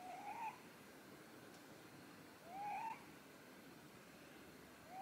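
Domestic cat meowing: short rising meows, each about half a second long, repeating about every two and a half seconds.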